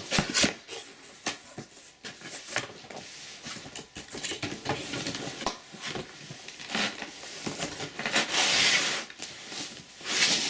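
Cardboard laptop box being handled and opened: irregular scrapes, taps and rustles of cardboard, with a longer sliding rub about eight seconds in.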